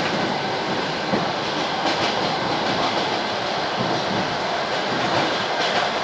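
ED4M electric multiple unit running along the track, heard from aboard: a steady rumble of wheels on rail with a few faint clicks.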